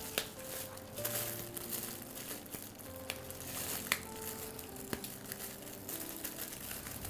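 Plastic food packet crinkling as it is handled and fitted into a bag-sealing clip, with a few sharp clicks, over soft background music.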